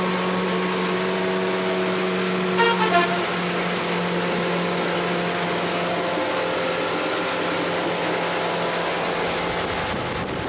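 Motorboat's engine running at speed: a steady drone with water and wind noise, and a brief run of higher tones about three seconds in.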